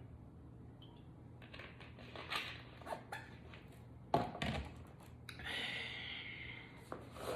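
A woman's short, low burp about four seconds in, among small clicks and rustles, followed by a breathy exhale.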